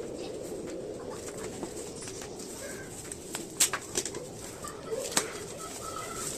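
Birds cooing steadily in the background, with a few sharp clicks a little past halfway.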